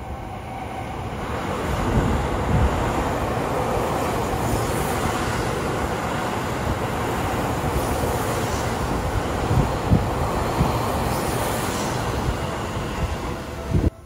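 Seibu 40000-series electric train passing through a station at speed: a rumble of wheels on rail builds over the first two seconds, then stays loud and steady as the cars go by, with a few low thumps, before cutting off suddenly near the end.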